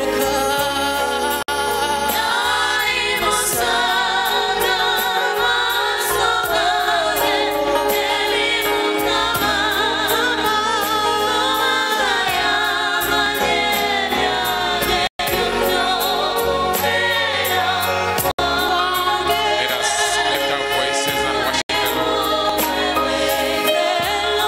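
A women's worship choir sings a gospel song through microphones over instrumental accompaniment with a steady beat. The sound cuts out for an instant three times in the second half.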